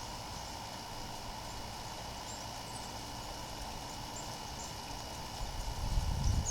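Yard ambience: a steady background hiss with a few faint, brief bird chirps scattered through it. A low rumble builds near the end.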